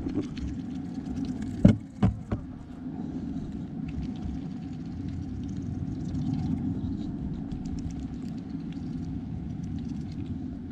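A Canada goose's bill knocks three times in quick succession against the plastic bucket about two seconds in as it pecks at bait dough, over a steady low rumble.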